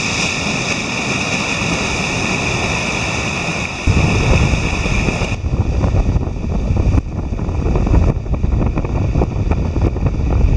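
Ocean surf breaking and washing over intertidal rocks, a steady roar of water. About four seconds in, heavy wind buffeting the microphone sets in over the surf.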